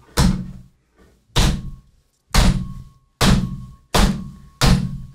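Hands slapping a wooden desktop in a beat that speeds up: about six heavy thuds, each one coming sooner than the last.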